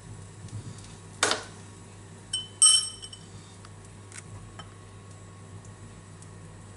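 Kitchenware handled while batter and spices are worked: a short scrape about a second in, then a metal spoon clinks once against crockery with a brief ring, followed by a few faint light taps.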